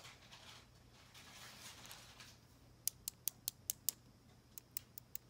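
Ballpoint pen making a run of sharp, light clicks, about five a second, starting about three seconds in and coming again more sparsely near the end. Before the clicks there is only a faint rustle of fingers handling a small crystal.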